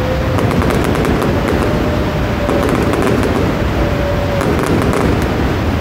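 Fireworks bursting and crackling in a rapid, unbroken barrage of sharp pops over a steady low rumble.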